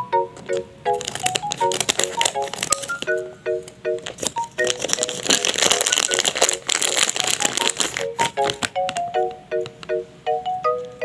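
Background music with a light, bouncy melody of short plucked notes. Over it come sharp crinkles and rustles, denser for a couple of seconds around the middle, as the plastic packaging of a blind bag is handled and torn open.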